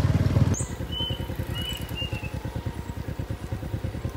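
A small engine running with a rapid, even low pulse; a louder low rumble over it cuts off about half a second in. A few short high chirps come about one and two seconds in.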